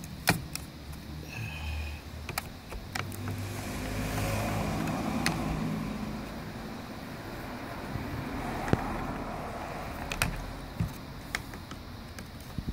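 Scattered sharp clicks and taps of plastic trim parts being worked loose with a flathead screwdriver from a car's instrument cluster. A low rumble swells and fades in the middle.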